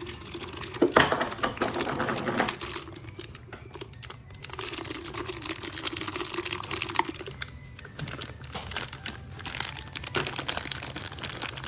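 A dog crunching a hard peanut butter cookie treat: a rapid run of small crunches and clicks, loudest in the first few seconds and coming again in bursts near the end.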